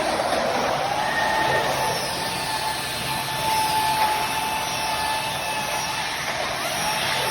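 Factory machinery running: a steady, noisy whir with a steady high whine above it.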